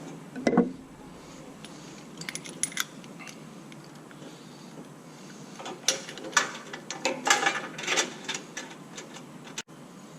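Metal hand tools clinking and rattling in two short clusters of sharp clicks, a spark plug spanner being handled and set down during a spark plug change.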